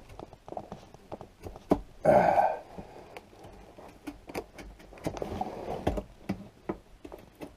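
Razor knife scoring and cutting the insulation on the back of an RV water heater: a run of short scratching and clicking strokes, with one louder half-second sound about two seconds in.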